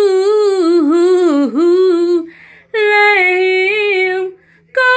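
A woman singing unaccompanied, drawing out long held notes that waver and dip in short runs. The phrases break off briefly for breath about halfway through and again near the end.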